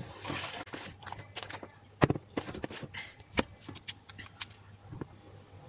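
Scattered light clicks and knocks of a handheld dynamic microphone and its cord being picked up and handled, the sharpest about two seconds in, over a faint low hum.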